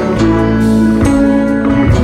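Background music led by guitar, with sustained notes and a steady bass changing every half second or so.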